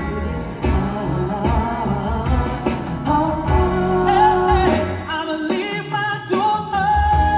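Male vocal group singing into microphones over band accompaniment with a steady drum beat; a note is held near the end.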